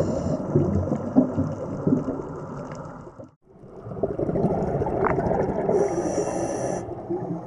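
Underwater ambient noise picked up by a diving camera: a muffled, rumbling wash of water and bubbles. It drops out briefly a little before the middle, and a high hiss lasting about a second sounds near the end.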